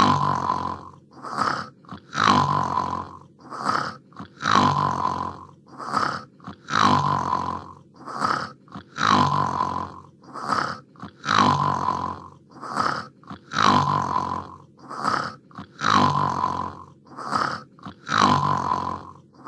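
Hanna-Barbera cartoon snoring sound effect on a loop: a short snort, then a longer snore that ends on a steady whistle-like tone. The cycle repeats about every two and a quarter seconds.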